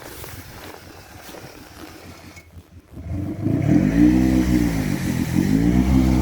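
Side-by-side UTV engine coming in loud about three seconds in and revving as it pulls away, its pitch rising, dipping briefly, then rising again. Before that there is only a low, faint rumble.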